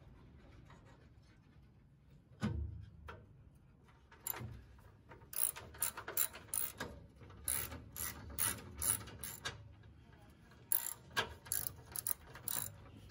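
Hand ratchet clicking in quick runs as the skid plate bolts are driven in, after a single thump about two and a half seconds in.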